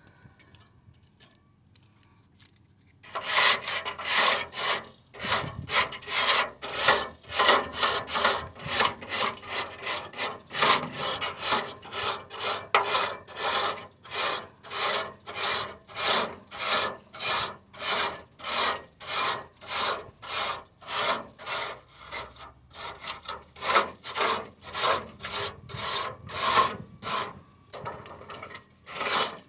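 Rhythmic back-and-forth scraping strokes, about two a second, like sawing or rasping, starting about three seconds in and running on with a couple of short breaks.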